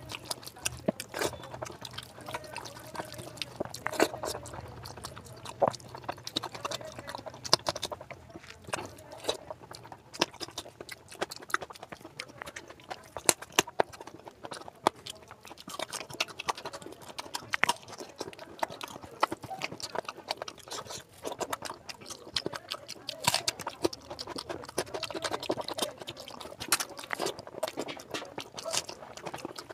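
Bare hand squishing rice into oily mutton curry on a steel plate: wet squelches and many irregular sharp clicks. Near the end, mouth sounds of chewing as a handful is eaten.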